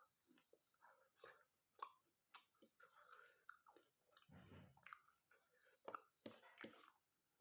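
A person chewing a mouthful of chicken curry and rice: soft, irregular wet mouth clicks and smacks, with a brief low sound around the middle.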